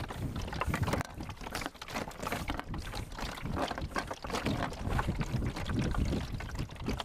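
Wind buffeting the microphone and choppy water lapping against a small wooden boat as it rocks, with scattered light knocks.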